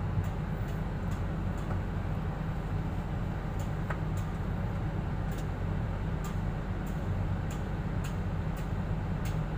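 A steady low engine hum, with about a dozen sharp metallic clicks at uneven intervals.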